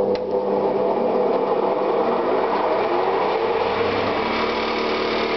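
Homemade branch chipper, a wood-planer cutterhead belt-driven by a roughly 2 kW capacitor-start electric motor. It has just been switched on and is running steadily with no branches being fed in, with a small click just after the start.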